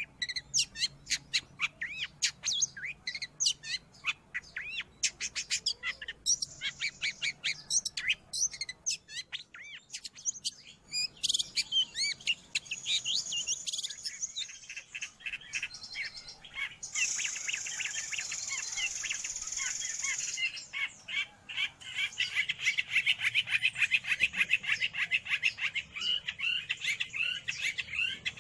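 Long-tailed shrike (cendet) singing a fast, varied chattering song of rapid sharp repeated notes, with a harsh, buzzy stretch about two-thirds of the way through.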